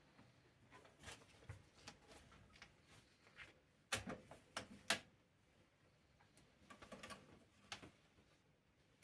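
Faint, scattered clicks and taps from the parts of a knitting machine carriage being handled, with a cluster of louder clicks about four to five seconds in.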